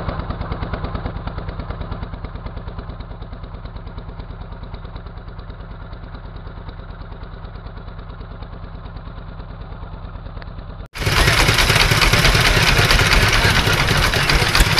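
Fishing boat's engine running steadily under way with a fast, even throb. About eleven seconds in the sound turns abruptly louder and fuller, the engine throb now under a hiss of wind and rushing water.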